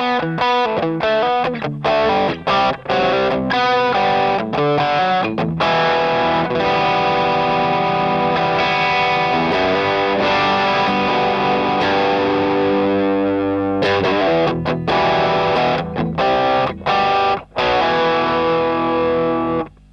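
Electric guitar overdriven through a Tubescreamer TS808 clone pedal: short, choppy chord stabs for the first six seconds or so, then long ringing chords, with more short stabs near the end before it stops.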